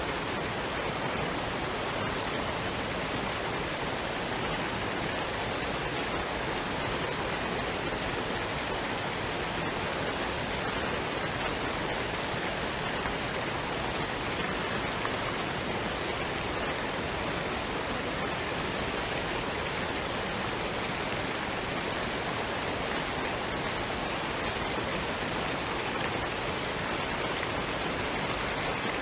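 Waterfall and stream water running, a steady, even rush with no change.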